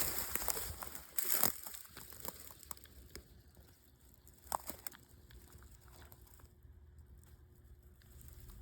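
Close rustling and crunching, with a louder rustle about a second in, thinning out to a few faint scattered clicks and ticks.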